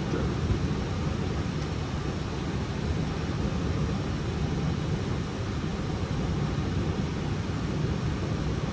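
Steady rush of airflow and engine noise heard inside an Airbus A320's cockpit on approach, unchanging and heaviest in the low range.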